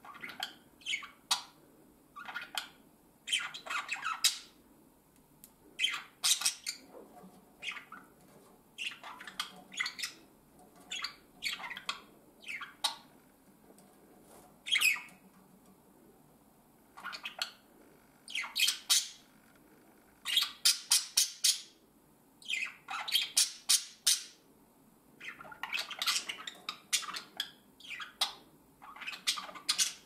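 Budgerigars chirping and squawking in short, sharp calls with pauses between them, including a run of rapid calls about two-thirds of the way through.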